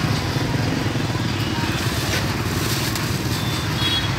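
A small engine running steadily with a fast, even low throb.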